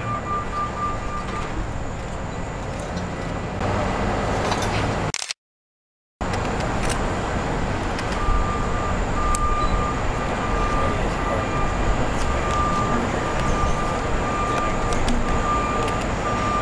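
Heavy machinery engines running steadily, with a vehicle's reversing alarm beeping in a regular pattern. The sound cuts out completely for about a second a third of the way in, then the engines and beeping carry on.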